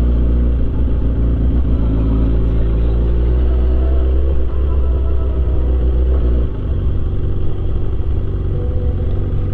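Motor vehicle engine running with a deep rumble, its low end dropping off somewhat about six and a half seconds in.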